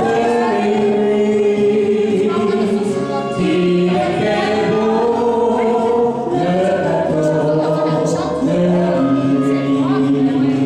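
A man and a woman singing a French-language karaoke duet into microphones over a backing track, with long held notes.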